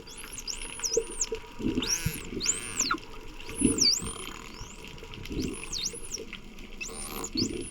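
Bottlenose dolphins whistling underwater: a string of high rising-and-falling whistles, some arching up and some dipping down. Short low bursts of bubbling sound between them.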